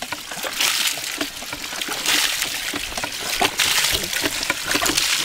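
Water from a hand-pumped spray bar splashing onto wet gravel in a plastic classifier. The splashing surges with each pump stroke, about every second and a half, with light knocks among it.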